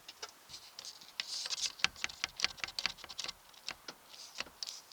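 Irregular light clicks, taps and rustles of hands working the Land Rover 109's roof vent, checking where it still hits as it retracts.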